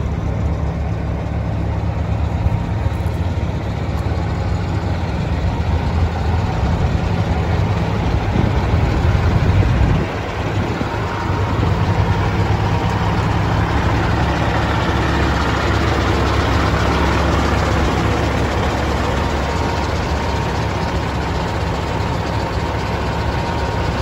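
Caterpillar C15 inline-six diesel in a Peterbilt 379 idling steadily when warm; the sound grows a little louder and then drops suddenly about ten seconds in.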